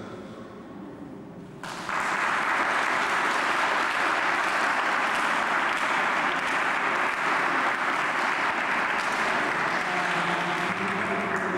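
Audience applauding, breaking out suddenly about two seconds in and then going on steadily.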